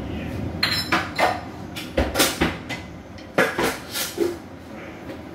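Stainless-steel pot and cookware clattering on a gas hob as the pot is lifted off the burner grate: a series of sharp metal clanks and knocks over about three and a half seconds.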